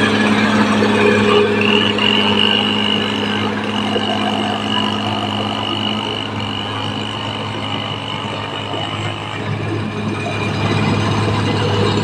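Caterpillar D6R XL bulldozer's diesel engine running steadily, with a high, steady whine from about a second and a half in until near the end.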